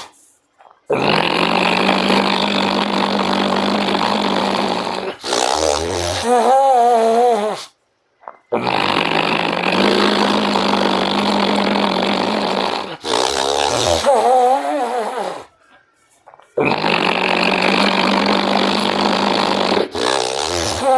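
Ujjayi pranayama breathing: slow, deep breaths drawn through a narrowed throat, which make a snoring rasp. Three cycles, each a long, even rasp of about four seconds followed by a shorter, wavering, more voiced rasp, with brief pauses between breaths.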